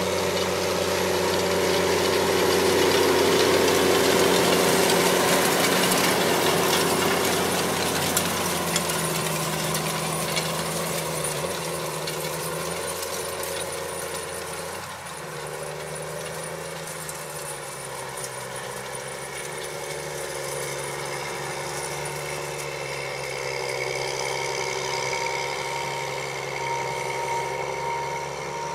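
Diesel engine of a Challenger MT765 rubber-tracked tractor running steadily under load while pulling a Väderstad Rapid seed drill. It is loudest about four seconds in and then fades as the tractor draws away.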